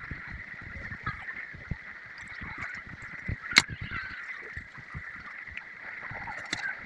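Wet, sticky squelching and peeling as the membrane is pulled off raw goat testicles by hand, with a sharp click about three and a half seconds in.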